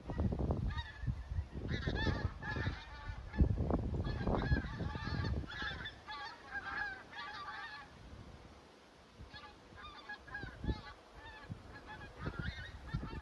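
A large skein of wild geese flying over, many birds honking at once in a dense chorus that thins out after about six seconds. Low rumbles underlie the calls, heaviest in the first five seconds.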